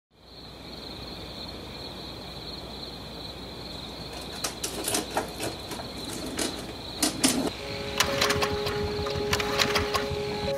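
A steady high-pitched drone fades in. From about four seconds in come clicks and knocks, and after a sharp double knock a small 4.5 hp engine starts and runs with a steady hum.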